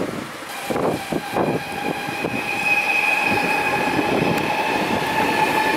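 A few knocks about a second in, then a steady, high mechanical whine over a rumble.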